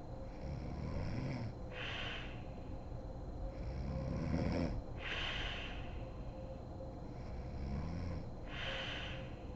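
A sleeping woman snoring in slow, even breaths. Three cycles, about three and a half seconds apart, each a low snore followed by an airy breath out.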